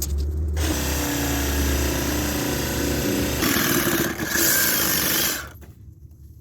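Cat 308 mini excavator's diesel engine running under load, a low steady drone with a loud hiss over it that swells twice, then drops away about five and a half seconds in.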